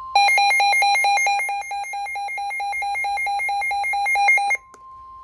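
Midland WR-120 weather radio sounding its alert: loud rapid beeping, about six beeps a second, that cuts in over the steady 1050 Hz NOAA Weather Radio warning alarm tone and stops suddenly about four and a half seconds in, leaving the steady tone. The alert signals that a warning is being received.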